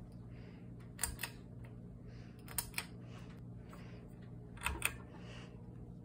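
Ceiling fan pull-chain switch clicking: three pulls, each a quick double click, over a steady low hum.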